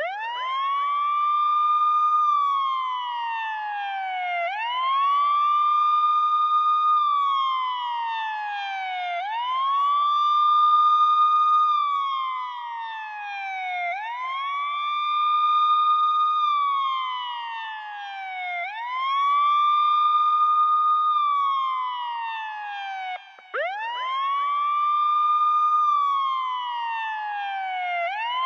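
Ambulance siren sounding a slow wail: each cycle rises quickly, holds at the top, then falls slowly, repeating about every four and a half seconds. About 23 seconds in it briefly cuts out and starts again from a lower pitch.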